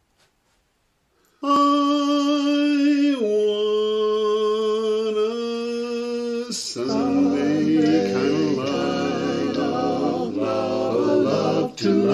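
Male a cappella quartet singing. About a second and a half in, a single male voice holds a note that steps down once. About halfway through, the other three voices join in four-part harmony.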